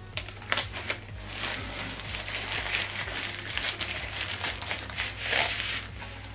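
Recycled plastic packaging sleeve crinkling and rustling as a soundbar section is pulled out of it and the sleeve is slid off. A few sharp crackles come near the start, and the loudest rustle comes about five seconds in.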